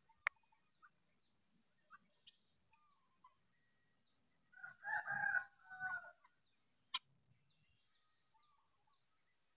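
A rooster crowing once, starting about four and a half seconds in and lasting under two seconds. Faint scattered bird chirps throughout, and two sharp clicks, one near the start and one about seven seconds in.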